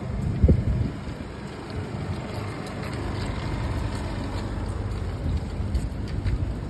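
City street ambience while walking: a steady low rumble of traffic with wind buffeting the microphone, and one loud low thump about half a second in.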